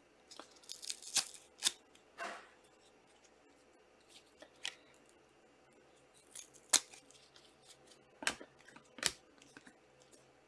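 Foil trading-card packs being opened by hand: a quick run of sharp snips and crinkles in the first two seconds, then single ones spread a second or two apart as the wrappers and cards are handled.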